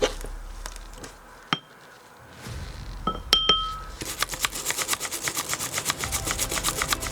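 A few light clinks of small tools with short metallic pings, then from about halfway a rapid, even scrubbing or scraping, about eight strokes a second: corroded battery contacts in a camera's battery compartment being scrubbed clean.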